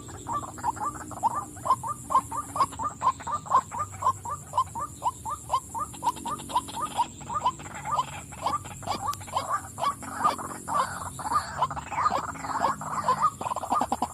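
Female white-breasted waterhen calling, a fast rhythmic run of short croaking notes, about four a second, without a break.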